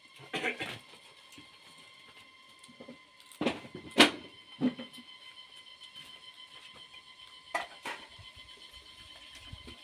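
Close-up eating sounds from a mukbang: a few short, sharp smacks and crunches of food being handled and chewed, the loudest about four seconds in, over a faint steady high-pitched whine.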